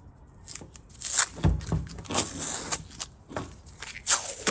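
Tape being peeled off the lithium iron phosphate cell packs as they are pulled apart, heard as several irregular tearing pulls.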